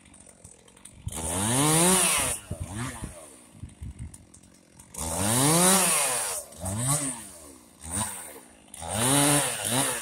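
Two-stroke chainsaw revved up and back down in repeated bursts while cutting up branches: three long runs at full throttle, about a second and a half each, with short blips of the throttle between them.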